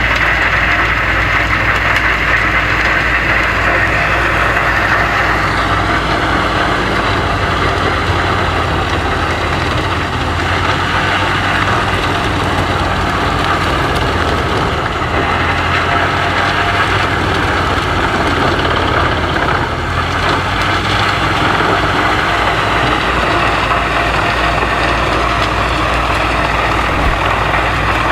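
Wood chipper running steadily, its engine droning loud and unbroken.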